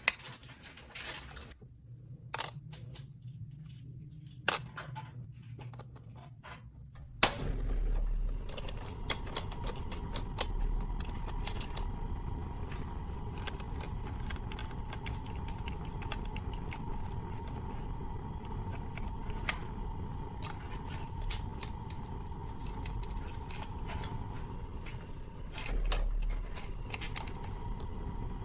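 Light clicks and rattles of small hard plastic pieces being handled. A sharp click comes about seven seconds in, and a steady hiss with a faint thin tone sets in after it.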